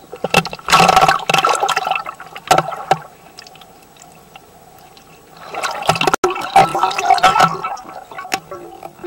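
Churning water and bubbling recorded underwater as a dog dives and paddles close to the camera, in two loud bouts: one starting about a second in, the other about five and a half seconds in. A faint steady tone runs underneath.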